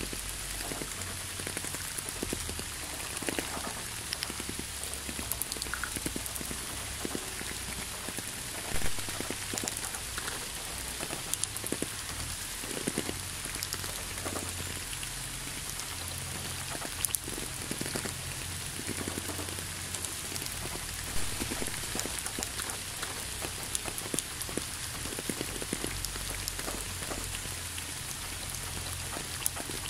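Steady rain falling, with many individual drops ticking close by and a few louder drop hits standing out now and then.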